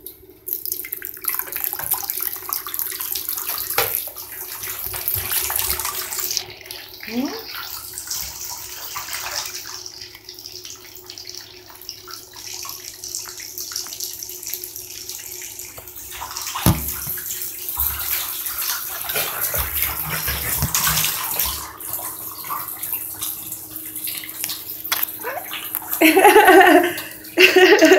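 Water running from a tap into a basin, splashing unevenly as baby raccoons play in the stream.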